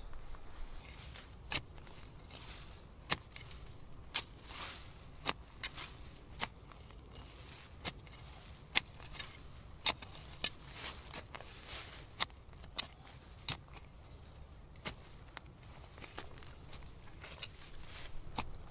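Folding shovel digging into soil and leaf litter: sharp chops of the blade striking the ground at irregular intervals, with scraping and rustling of dead leaves between them.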